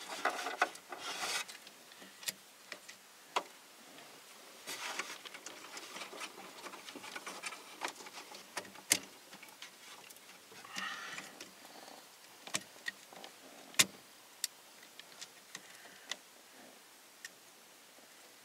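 Scattered clicks, taps and rubbing of hands working parts back into a 1991 Ford F-150's steering column under the dash; a few sharper clicks stand out, the loudest about 14 seconds in.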